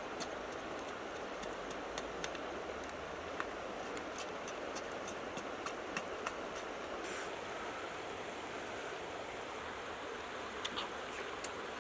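Wood cooking fire crackling, with sharp pops scattered over a steady hiss, as a small shark roasts on a stick spit.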